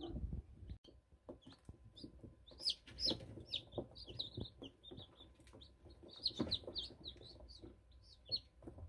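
A brooder full of newly hatched chicken chicks peeping: many short, high chirps overlapping at irregular intervals, with scattered soft taps.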